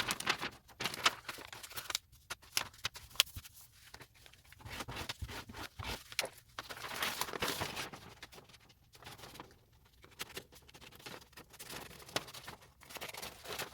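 Wrapping paper rustling and crinkling as it is handled and glued onto a card, with many small irregular taps and clicks.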